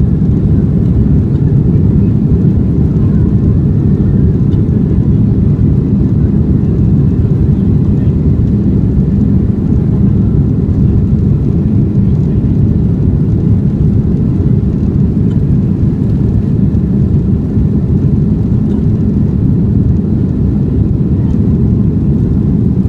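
Airplane taking off: a loud, steady low rumble of engines and airflow without a break.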